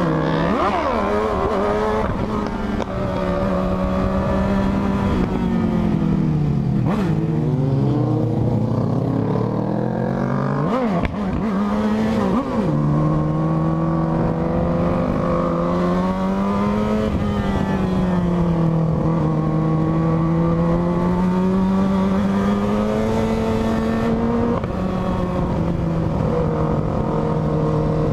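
Motorcycle engine heard from the rider's seat while riding. The note rises and falls with the throttle, drops low about seven to ten seconds in as the bike slows, revs up sharply twice around eleven and twelve seconds, then settles into a steadier cruise that wavers with the throttle.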